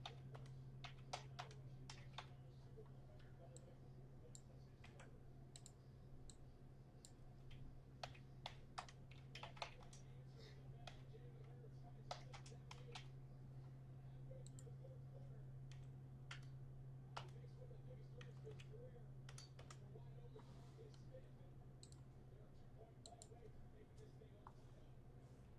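Faint, irregular clicking of a computer keyboard and mouse, in small clusters that thin out near the end, over a steady low hum.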